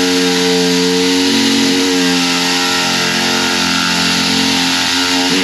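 Air-powered cutting tool running steadily at full speed, loud, with a strong hiss of air. It is cutting the side bolster off a race seat.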